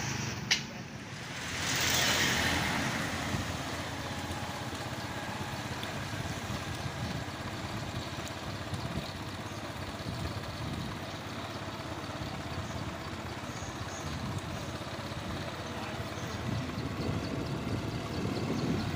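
A motor-vehicle engine runs steadily under road and traffic noise. A broad rush of noise swells and fades about two seconds in.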